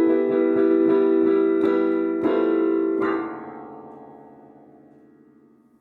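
Piano-style keyboard music ending on a final chord that rings out and fades away over the last three seconds.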